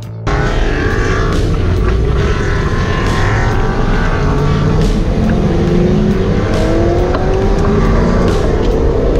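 Swapped 6.0-litre LQ4 V8 in a 1981 Camaro Z28, heard from inside the cabin, running loud under load as the car pulls away. Its note climbs several times from about four seconds in as it accelerates.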